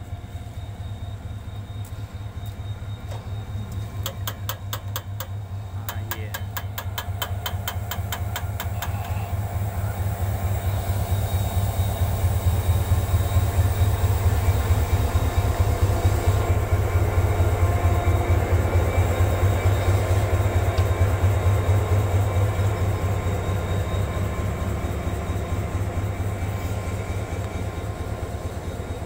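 HGMU30-R diesel-electric locomotive arriving and passing close by at slow speed, its diesel engine's low steady drone growing louder as it draws level about halfway through, then easing slightly as the train rolls past. A few seconds in, a run of rapid, regular clicks.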